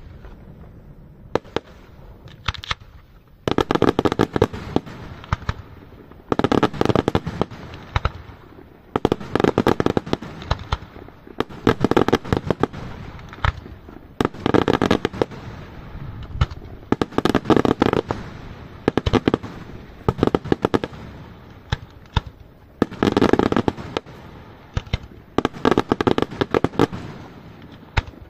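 Daytime aerial fireworks going off in repeated volleys of rapid firecracker-like crackling, each volley lasting a second or two with short gaps between. The first volley starts a few seconds in, after a quieter opening.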